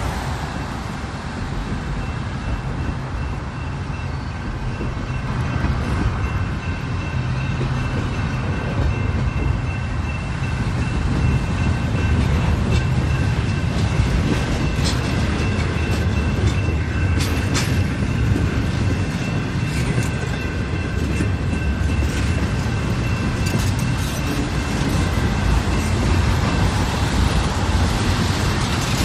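Double-stack container well cars of a freight train rolling past: a steady rumble of steel wheels on rail, growing louder about a third of the way in, with a faint steady high whine and a few sharp clicks partway through.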